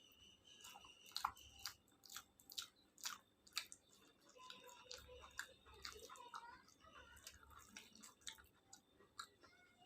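Quiet close-up eating: chewing and wet mouth clicks of someone eating khichuri with fried potol, potato and egg, with a quick run of sharp clicks in the first few seconds, then softer chewing.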